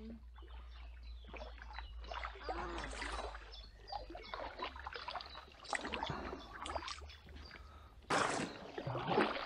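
Kayak paddling: a double-bladed paddle dipping into calm water and dripping as it lifts, in an uneven run of small splashes. The louder strokes come about three seconds in, around six seconds, and near the end.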